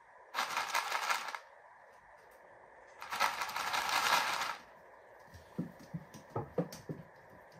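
Feed pellets rattled in a plastic tub, shaken twice for about a second each time; then a lamb's hooves clicking on a tiled floor as it trots up.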